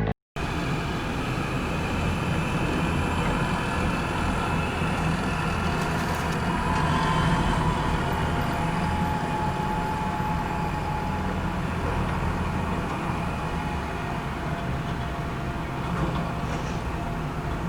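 Heavy excavator's diesel engine running steadily, with a low hum and a faint whine from the hydraulics.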